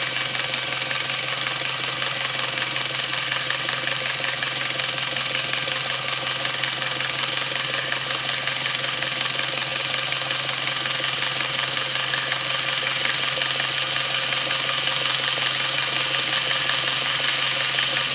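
LEGO Technic electric motor running steadily, driving a train of plastic Technic gears, with a continuous whir and whine from the motor and the meshing gear teeth.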